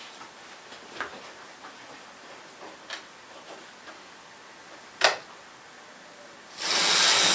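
Light clicks from a locomotive being handled on OO gauge model railway track and its controls: two faint ones, then a sharper click about five seconds in. Near the end a loud, steady rushing hiss starts suddenly.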